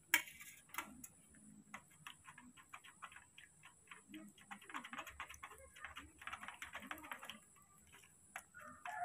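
Small spoon clicking and tapping against a plastic bowl while stirring honey into carrot juice: one sharp click at the start, then a run of quick light clicks, densest in the middle.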